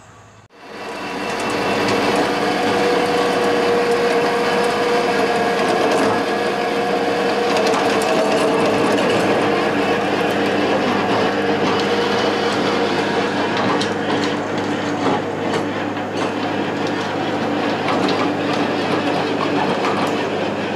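Small farm tractor engine running steadily at close range, starting abruptly about half a second in.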